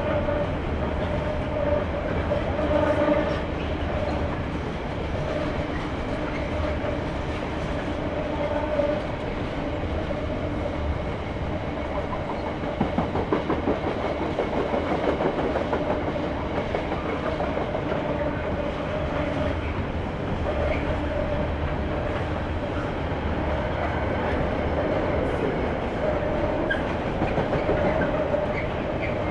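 Container wagons of a long freight train rolling past, wheels clicking over rail joints over a steady rumble and hum; the clicking comes thickest about halfway through.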